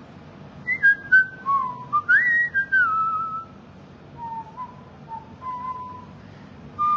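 Someone whistling a tune: held notes joined by slides, louder in the first half, with a short break about halfway and softer notes after. Two short clicks come about a second in.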